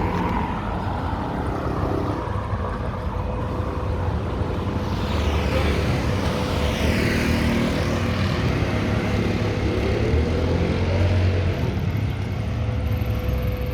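Busy road traffic passing close by: a vehicle sweeps past in the middle, and an engine revs up about ten seconds in, over a steady low rumble. A faint constant whine from the handheld camera gimbal's motors runs underneath.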